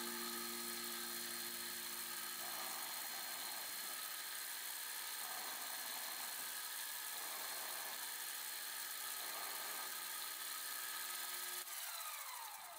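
Small milling machine running steadily with an end mill cutting a slot into a metal connecting-rod blank held in a vise: a constant motor whine over a hiss of cutting. Near the end there is a click, and a tone falls away in pitch.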